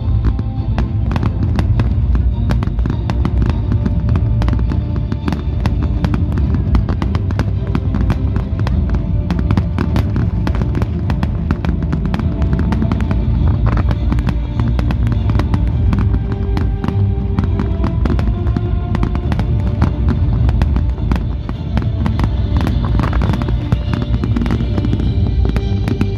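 Fireworks display: a dense, rapid run of firework bangs and crackles over loud music.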